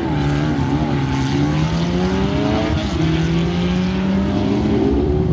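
A pair of drag-racing motorcycles launches from the start line and accelerates down the strip. Their engine note climbs steadily, breaking once about three seconds in.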